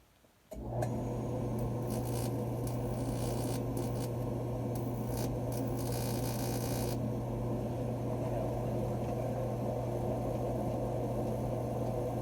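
A mains-powered electric motor switches on suddenly with a strong steady hum and runs evenly, with crackling on top for the first several seconds.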